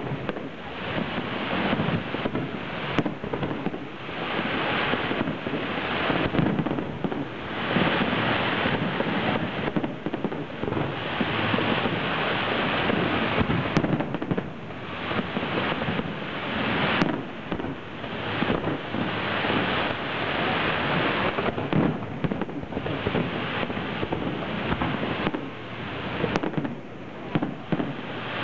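Fireworks display: aerial shells bursting in quick, overlapping succession, with crackling bangs that rise and fall in waves.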